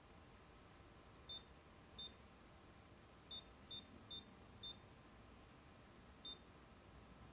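DS203 pocket oscilloscope beeping as its buttons are pressed: seven short, high single-tone beeps at irregular intervals, each one a key press acknowledged.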